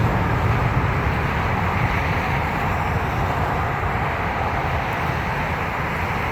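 Jet airliner's engine roar during a takeoff, a steady rumbling rush that slowly fades.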